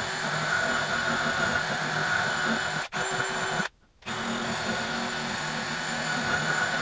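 Cordless drill spinning a wire wheel brush against the threads of an engine head bolt held in a vise, cleaning it up: a steady whirr. It stops for a moment a little past halfway, starts again, and cuts off suddenly at the end.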